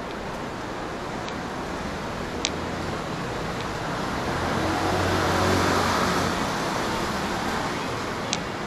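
Street traffic noise, with a motor vehicle passing close by, its engine hum and tyre noise building to the loudest point about midway and then fading. Two short sharp clicks, one a couple of seconds in and one near the end.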